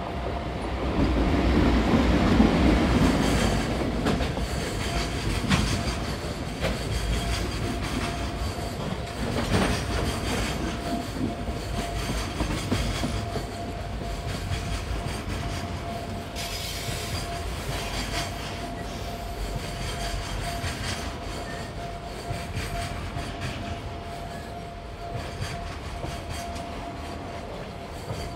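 Freight train hauled by an EF81 electric locomotive passing close by. The locomotive goes by loudest in the first few seconds, then the container wagons roll past with a steady rumble and the clack of wheels over rail joints. A steady high tone runs underneath.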